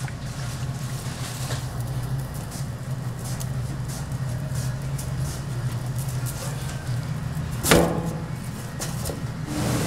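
Steady low mechanical hum, with light scattered clicks and one sharp knock about three-quarters of the way through.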